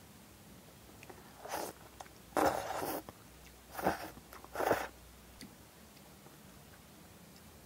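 A person slurping black-bean-sauce noodles (jajangmyeon) in four quick pulls, the second one the longest and loudest.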